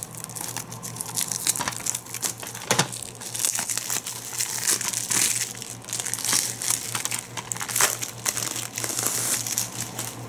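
Plastic shrink-wrap being picked at, peeled and pulled off a DVD case: an irregular, continuous run of crinkling and crackling.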